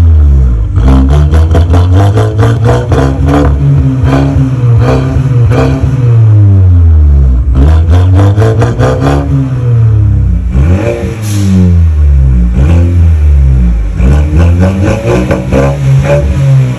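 Turbocharged four-cylinder engine of a Mercedes A200 revved repeatedly through an exhaust with the stock rear silencer removed and split to twin outlets. The pitch climbs and falls with each blip, with runs of sharp crackles.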